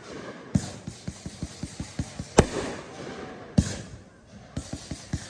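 Aerial fireworks bursting: three loud booms, the loudest about two and a half seconds in, with quick runs of crackling pops between them.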